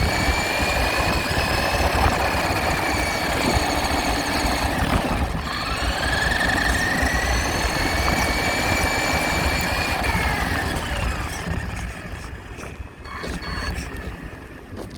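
RC truck's motor whining as it drives over a steady hiss. The pitch drops about five seconds in, climbs again, then falls away and fades near the end.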